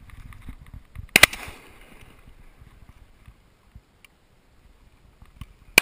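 Two shotgun shots at ducks: a sharp, loud report about a second in with a short fading tail, and a second shot at the very end.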